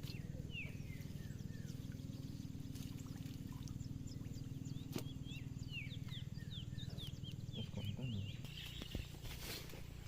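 Birds calling in quick series of short, high, falling chirps over a steady low hum, with a few clicks and a brief rustle near the end.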